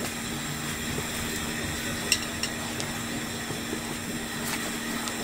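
A steady hiss with a low hum, with a few light clicks and taps as a hand handles drained rice in a plastic colander.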